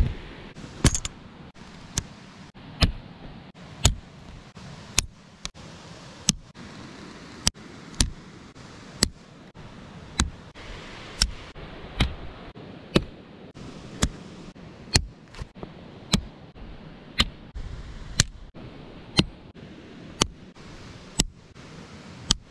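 Aluminium tent poles clacking as a canvas swag is put up: sharp clicks about once a second over a faint steady hiss.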